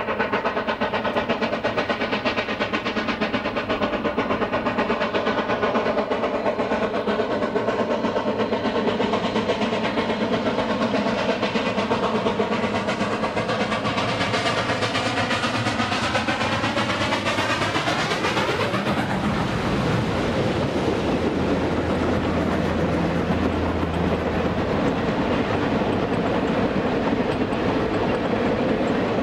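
Spokane, Portland & Seattle 4-8-4 steam locomotive No. 700 running under steam as it comes up and passes close by with a passenger train. Its sound sweeps and changes sharply as it goes past, about 19 seconds in. The passenger cars then roll by with their wheels clicking over the rail joints.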